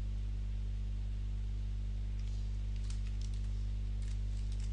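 A few faint computer keyboard keystrokes, in a short cluster about two to three seconds in and another about four seconds in, over a steady low electrical hum that is the loudest sound.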